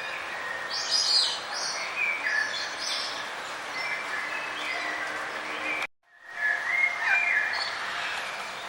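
Several birds chirping and trilling over a steady background hiss, with short calls overlapping. The sound cuts out for about half a second about six seconds in, then the chirping resumes.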